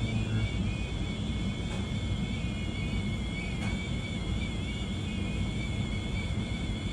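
Steady low rumble of running HVAC equipment, with a constant high-pitched, slightly wavering whine.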